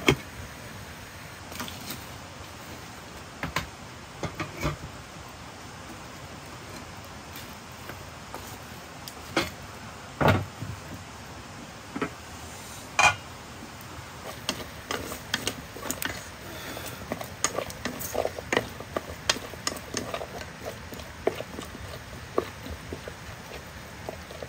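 Metal cookware being handled: scattered knocks and clinks of lids and pots, then a busier run of small taps and scrapes as wooden chopsticks stir meat in a metal pot, over a steady low hiss. A few louder knocks come near the start and about ten and thirteen seconds in.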